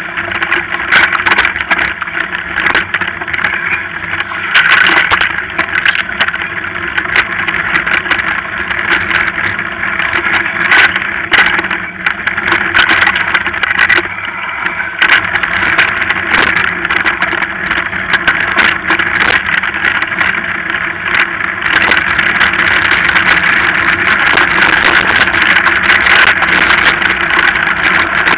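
Mountain bike ridden over a rough trail: a continuous rumbling drone with constant rattling and sharp knocks as the bike and camera are jolted over bumps.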